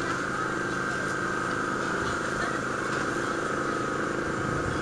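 Large diesel truck engine idling steadily, on a dekotora fitted with a manifold-split (mani-wari) exhaust, with no revving. A steady high whine runs alongside it.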